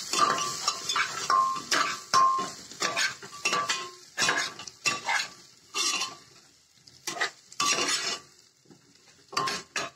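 A metal spoon stirring and scraping potatoes and onions in an aluminium pressure cooker, clattering against the pot's sides, with the frying vegetables sizzling. The strokes come quickly for the first few seconds, then more spaced out.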